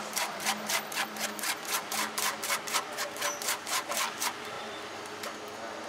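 Metal spoon scraping tomato pulp against a metal mesh sieve to push the juice through, in quick, even strokes about four a second that stop about four seconds in.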